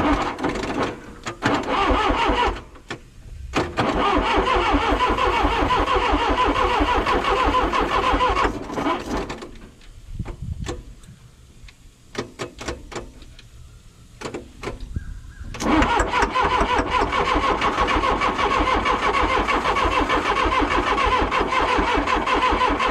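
Diesel engine of an old John Deere backhoe being cranked over by its starter motor in several long bursts with pauses between, turning over rhythmically without catching.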